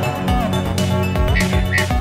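Background music with a steady beat and a held bass line.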